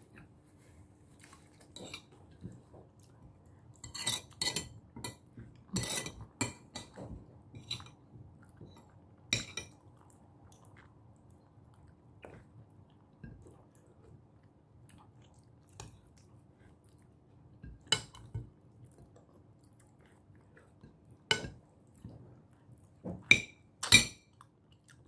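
Close-miked eating by hand of rice and salmon: chewing and lip smacks with scattered sharp clicks and plate clinks. There is a cluster about four to seven seconds in, and the loudest smacks come near the end.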